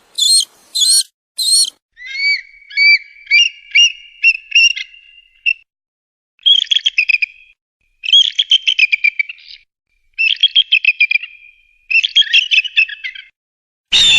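Eagle calling: a run of high whistled chirps, then phrases of rapid chattering trills with short pauses between them. A louder, different sound cuts in right at the end.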